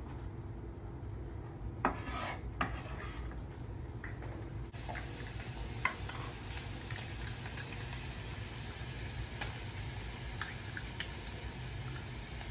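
Cooking prep sounds: a cluster of scraping about two seconds in, then a few sharp clicks of a knife on a wooden cutting board and a spoon against a glass jar as chopped vegetables and minced garlic go into a skillet of browned ground beef. Under it, a steady low hum and faint hiss.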